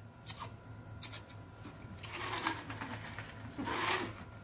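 A man blowing out hard through pursed lips with a low moan, twice, as he tries to cool a mouth burning from a very hot chili chocolate, after a few faint clicks.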